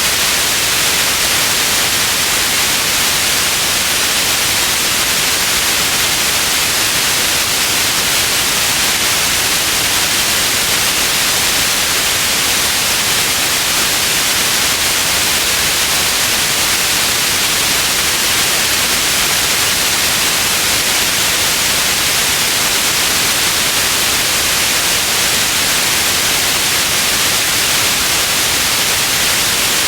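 Steady white noise: an even, unchanging hiss, brightest in the upper range.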